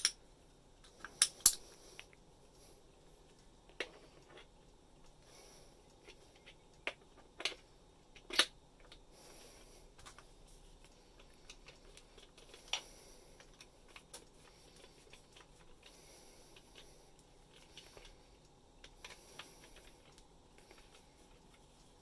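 Sharp metal clicks and clinks of a bimetal hole saw being fitted onto its drill arbor and tightened with a hex key, with gloved handling noise between them. The clicks come singly and irregularly; the loudest pair is about a second and a half in.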